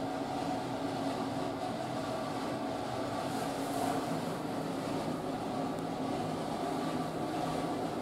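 A steady mechanical hum with a low drone and a couple of held tones, unchanging throughout.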